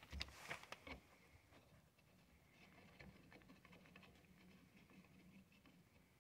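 Near silence, with a few faint clicks in the first second as a whip antenna is handled and screwed onto its SO-239 roof mount, then only very faint light ticking.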